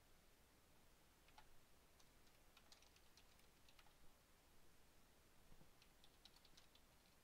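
Faint keystrokes on a computer keyboard, typed in short runs: scattered clicks for a few seconds, a short pause in the middle, then a quicker run of keys near the end.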